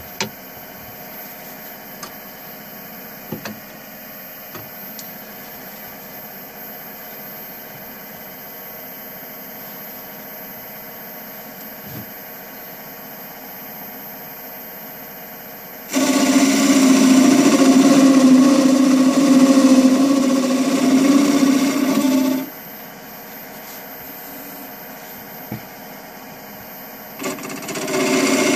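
Wood lathe motor running with a steady hum and a few faint clicks. About halfway through, a turning tool cuts into the spinning bowl blank for about six seconds, much louder than the hum. A second cut starts near the end.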